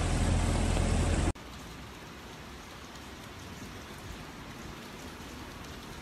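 A loud, deep rushing noise cuts off abruptly about a second in. It gives way to a quieter, even hiss of steady rain.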